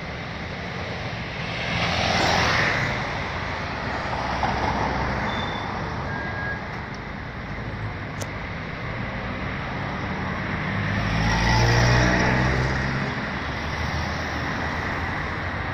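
City street traffic: car engines running and tyres on the road as cars move close by. About three quarters of the way through a car drives past close, its engine rumble swelling and fading.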